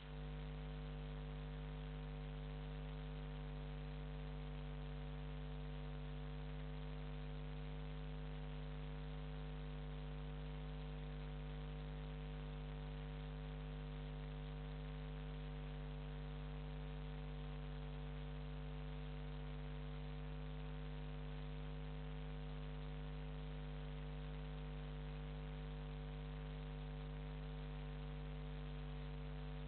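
Steady electrical mains hum with a low buzz over faint hiss, unchanging throughout; no boat engine or other sound stands out above it.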